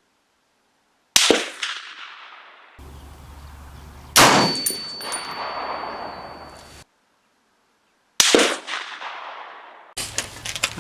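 Three rifle shots from an M1A semi-automatic rifle firing 178-grain ELD Match rounds. Each shot is a sharp crack followed by a long fading echo, and they are spaced a few seconds apart.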